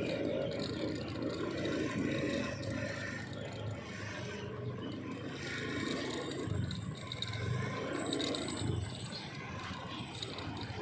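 Steady outdoor street noise of traffic and running engines, a low rumble with no distinct single event.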